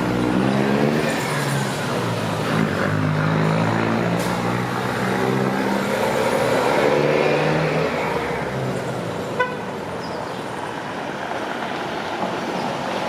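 A motor vehicle's engine running close by on a city street, its pitch stepping up and down for about eight seconds before it fades into general traffic noise, with a brief sharp sound about nine seconds in.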